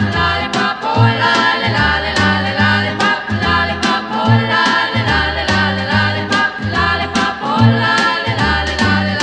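Background music: a song with singing over a steady bass line and drum beat.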